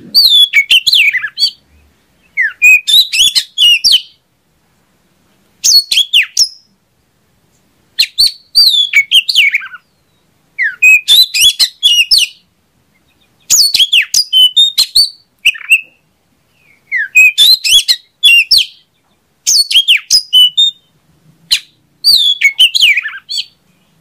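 Oriental magpie-robin (kacer) singing loud, varied phrases of whistled, sliding notes mixed with rapid clicky notes. It gives about ten bursts of song, each a second or two long, with short pauses between them.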